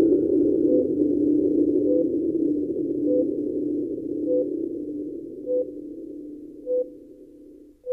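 Hospital heart-monitor beeps, short and evenly spaced about every 1.2 seconds, over a steady low drone that fades away toward the end.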